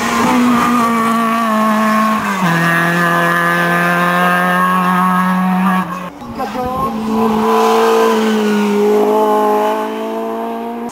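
Racing car engines at full throttle on a hillclimb course. One engine holds a steady pitch and drops in pitch about two seconds in at a gear change. After an abrupt break about six seconds in, a second car's engine holds a steady pitch to the end.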